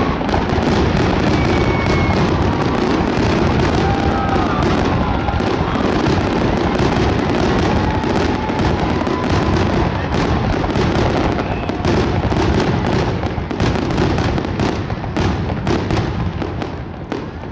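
Fireworks finale: a dense, continuous barrage of aerial shell bursts and crackling, with bangs overlapping one another, dying down just before the end.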